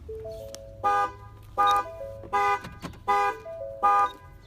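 2015 Ford Fusion's horn honking in short blasts, five times about every three-quarters of a second: the car's anti-theft alarm is going off.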